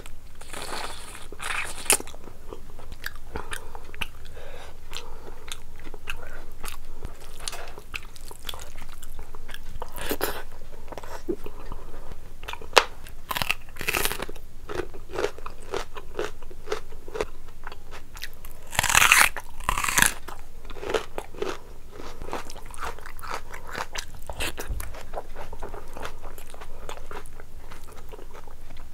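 Close-miked chewing and biting of rice and meat curry, with crisp crunches from bites of raw red onion; the loudest crunches come about 19 and 20 seconds in.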